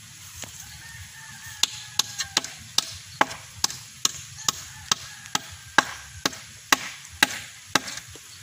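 Hammer striking a bamboo fence post where barbed wire is fastened: a run of about sixteen sharp blows, two to three a second, starting about a second and a half in.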